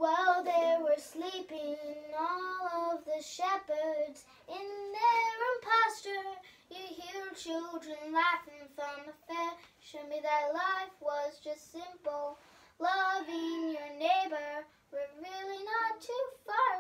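A young girl singing without accompaniment, reading the words from a sheet, in short phrases of held notes.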